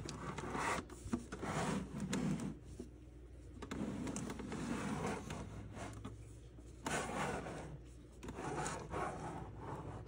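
Handling noise as the plastic case of a Lathem 7000E time clock is turned around on a tabletop: rubbing and scraping in several swells, with a couple of light clicks about a second in.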